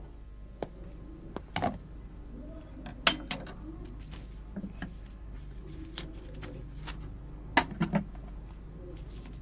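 A block of dry instant noodles being crushed by hand and crumbled from its plastic packet into a bowl: scattered crackles and clicks, with clusters of louder snaps about three seconds in and near the end.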